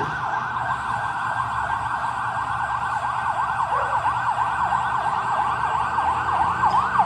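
Fire engine's siren in a fast yelp, sweeping quickly up and down a few times a second, over the low hum of the truck's engine. It grows louder near the end as the engine comes closer.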